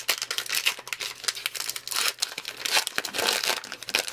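Crinkling and tearing of a 2020 Topps Gypsy Queen baseball card pack wrapper as it is torn open and peeled back from the cards, a dense run of crackles and rips.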